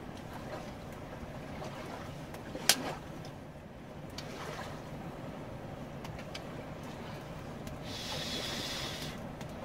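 Steady low rush of river water, with faint crackles from a small stick campfire being poked with a stick. One sharp snap about a third of the way in.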